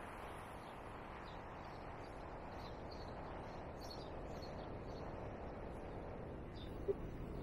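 Steady outdoor street noise with faint, scattered high bird chirps, and one short blip near the end.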